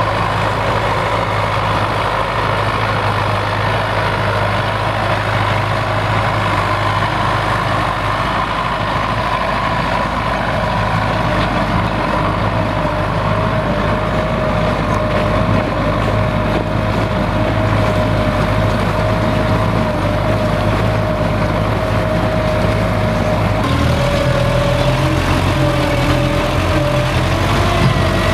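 Belarus MTZ-82 tractor's four-cylinder diesel engine running steadily under load while pulling a plough through frozen ground. About three-quarters of the way through, the sound changes abruptly to the engine heard from inside the cab.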